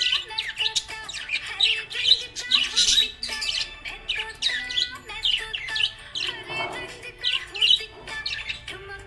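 Budgerigar chirping, a quick, continuous run of short high chirps.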